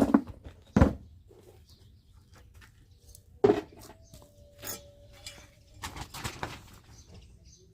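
A few sharp knocks among faint rustling as pine cones are handled and dropped into a planting container.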